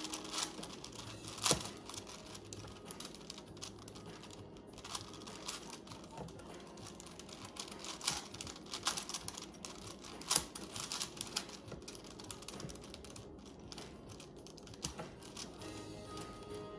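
Plastic Rubik's cube being twisted by hand: irregular clicking and clacking as its layers are turned, with faint music in the background.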